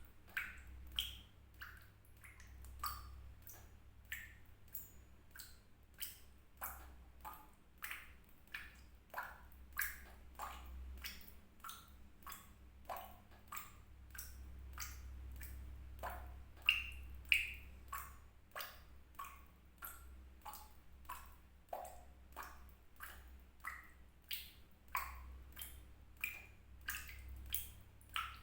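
Water drops falling one after another into water, roughly one to two drips a second at uneven spacing, each a short plink at a different pitch. A faint low hum runs underneath.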